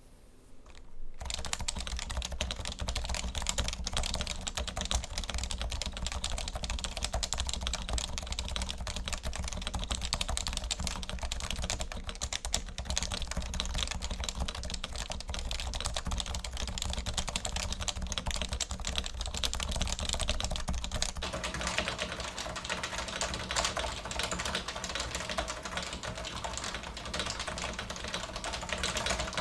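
Typing on a Topre keyboard in a polycarbonate DNFU case with a stainless steel plate and 205-lubed switches: a steady, continuous stream of rapid keystrokes, starting about a second in.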